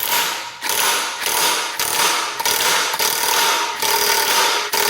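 Power wrench running in repeated short bursts with a steady whine, spinning off a reverse-threaded part of a two-stroke jet-ski engine. The part is loosened by turning it clockwise.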